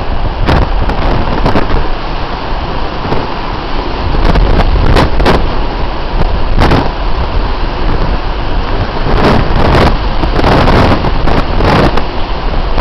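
Storm wind blasting the microphone over heavy surf: a loud, continuous rushing noise broken by many sharp, crackling gusts that overload the recording.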